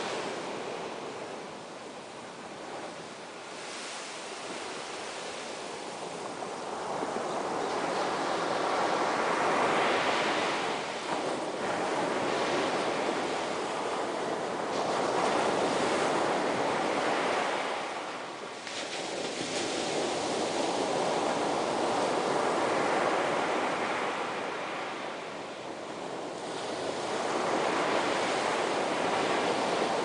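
Ocean surf breaking and washing in, a continuous rush of water that swells and eases every several seconds as each wave comes in.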